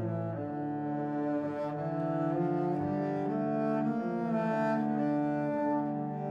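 Background instrumental music of long held notes that change pitch every second or so.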